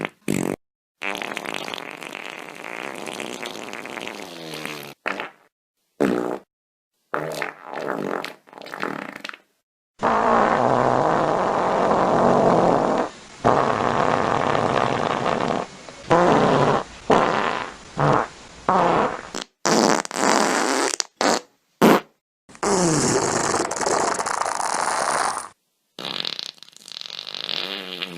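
A string of fart sound effects, one after another: long and short flatulent blasts, many with a rough, wavering pitch, each cut off abruptly before the next.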